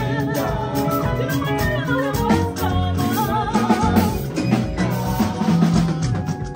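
Live band playing a song: lead and backing singers over bass guitar, electric guitar, keyboards and drums.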